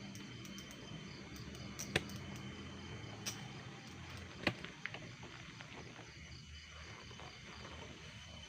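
Quiet night ambience with a faint steady drone of crickets, broken by a few short sharp clicks, the loudest about two seconds in and another about four and a half seconds in.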